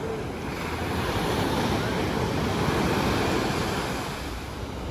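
Sea waves washing onto a beach: a surge of surf rises over about two seconds and then eases off, with wind buffeting the microphone.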